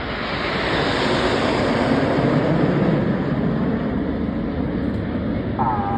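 Roar of the Red Arrows' BAE Hawk T1 jets passing in formation on the team's arrival. It swells over the first couple of seconds and stays loud to the end.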